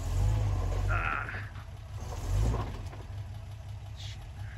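Off-road vehicle's engine rumbling low while crawling over a rocky trail obstacle, swelling louder twice: at the start and again about two seconds in.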